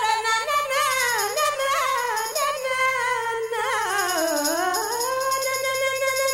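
A woman singing a cantorial-style melody with a wide vibrato, its ornamented line dipping to a low point about four seconds in and climbing back, over instrumental accompaniment.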